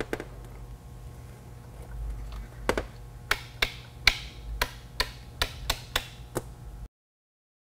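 Switches on an sPOD SE switch panel being pressed in turn: a run of about a dozen sharp clicks, two or three a second, over a faint low hum.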